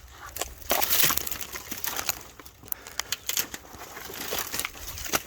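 Irregular crackling and scraping of digging by hand in soil and debris around tree roots, heaviest about a second in.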